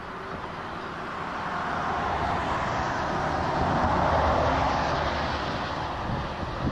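A vehicle passing on the roadway beside the walkway, its road noise swelling to a peak about four seconds in and then fading.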